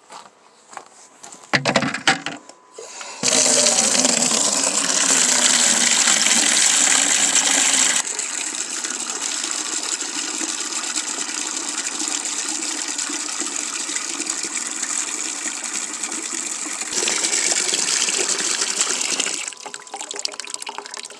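Water from an outdoor spigot running into a plastic bucket, filling it. The flow starts about three seconds in after a few knocks, softens partway through, swells again briefly and eases off near the end.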